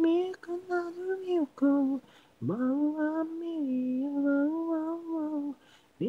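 Isolated lead vocal of a song sung without instruments: a few short sung notes, a brief pause, then one long held line of about three seconds.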